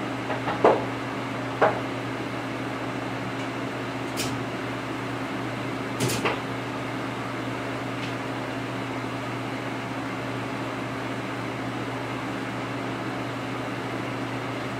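Steady electric motor hum of running shop machinery, with a few sharp clicks and knocks: two in the first couple of seconds, and a pair about six seconds in.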